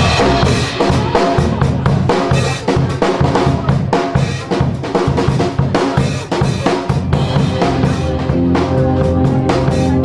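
A pop-rock band plays an instrumental opening. A drum kit keeps a steady, busy beat of kick and snare hits over a bass line. Sustained chords come up more clearly about eight seconds in.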